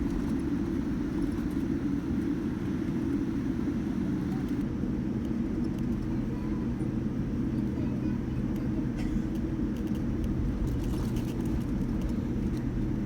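Steady low rumble of a Boeing 787-9 taxiing, heard inside the cabin: engines at low power and cabin air, with a constant low hum.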